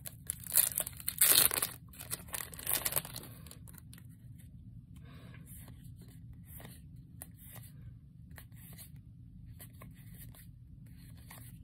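Foil booster pack of Yu-Gi-Oh cards torn open by hand, with loud crinkling rips during the first three seconds or so, then quiet rustling and flicking as the cards are thumbed through.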